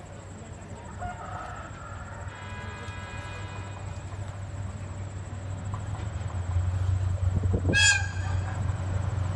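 A DF200-7000 diesel-electric locomotive, hauling the Seven Stars in Kyushu train, rumbles steadily louder as it approaches. Its horn sounds faintly for over a second about two seconds in. About eight seconds in there is a short, loud, shrill call.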